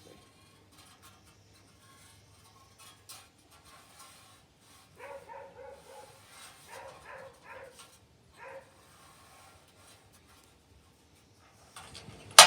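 A dog barking in a quick run of about ten short barks, fairly faint, starting about five seconds in and ending a few seconds later. A few faint clicks come before it.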